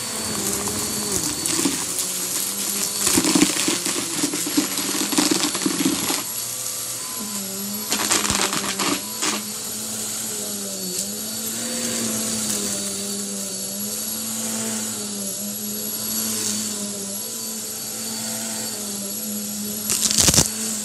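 Bissell upright vacuum cleaner running with a steady hum that wavers in pitch as it is pushed. It gives crackling rushes in the first few seconds and again about eight seconds in as it sucks up a clump of lint and debris from the rug.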